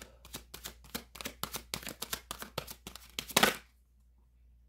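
A deck of tarot cards being shuffled by hand, quick rhythmic swishes about six a second, ending with a louder swish a little over three seconds in, then stopping.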